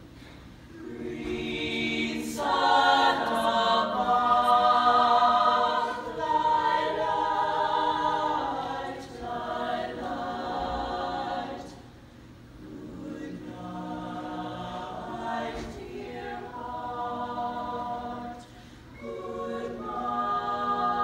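Small mixed choir singing a slow song in held chords. The voices swell to their loudest a few seconds in and then soften, with two brief lulls between phrases, one about halfway through and one near the end, before the voices come back in.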